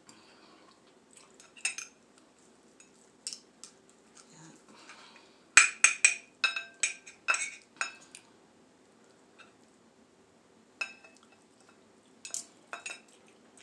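Knife and fork clinking and scraping against a plate while cutting a T-bone steak: a quick run of sharp clicks about six to eight seconds in, and a few more near the end.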